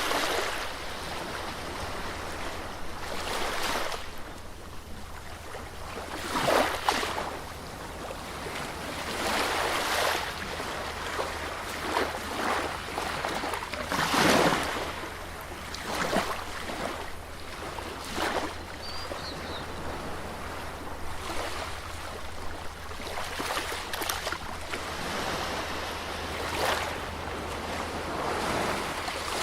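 Sea waves breaking and washing up on a beach. The surf surges irregularly every two to three seconds over a steady low rumble.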